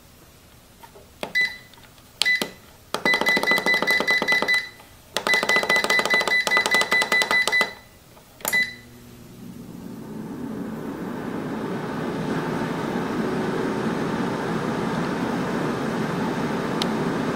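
Cook's Essentials air fryer control panel beeping as its buttons are pressed: a few single beeps, then two long runs of rapid beeping as buttons are held to scroll the time and temperature, and one more beep. About ten seconds in, the fan starts and its rush of hot air builds up, then runs steadily.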